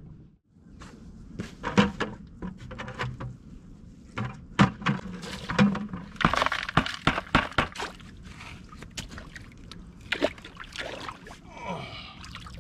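Steel shovel digging into wet, gravelly clay in a muddy drain: repeated scrapes and sharp clinks of the blade on stones, with splashing of water near the end.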